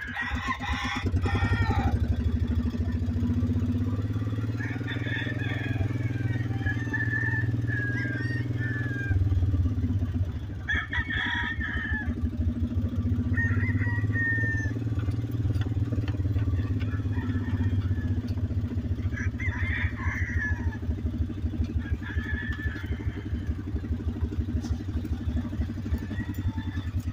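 Game roosters crowing several times, one after another, over the steady running of the ride-on vehicle's small engine.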